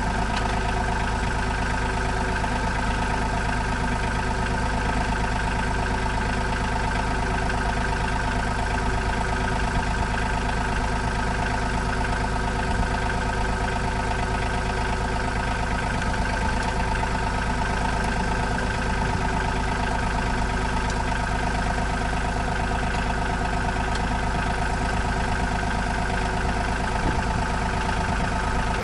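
RK 37 compact tractor's diesel engine running steadily, heard from the operator's position, as the tractor moves slowly forward.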